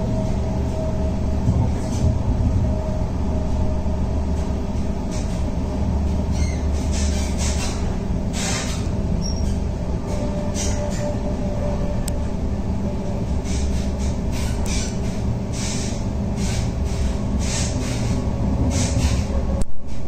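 Intercity passenger train running at speed, heard from inside the carriage: a steady low rumble with irregular short clicks and knocks, and a louder knock near the end.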